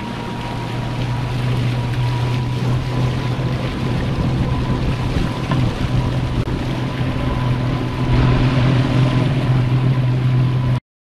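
Electric underwater fin motor driving a stand-up paddleboard at speed. A thin steady whine and a low hum sit over rushing water and wind noise, and the sound cuts off abruptly near the end.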